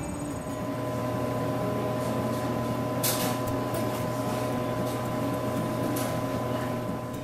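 A steady mechanical hum: a low drone with a couple of fainter steady higher tones over a noise haze, with a short hiss about three seconds in and another about six seconds in.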